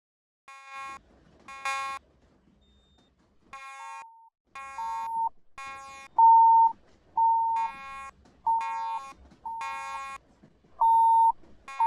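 Fire alarm notification appliances sounding during a system test: short, buzzy horn-like blasts about half a second each, overlapped by a purer single-pitched beep from a second device. The blasts come unevenly, with a pause of about a second and a half near the start, then about one or two a second, the devices out of step with each other.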